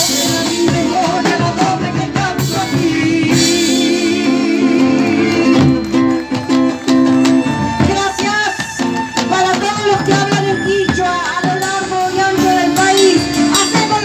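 A live band playing: a bombo legüero and a drum kit beating under an acoustic guitar, with a singing voice.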